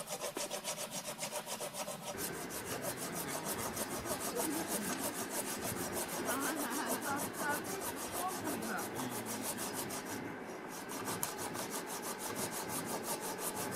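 A hand saw cutting through wood with fast, even back-and-forth strokes.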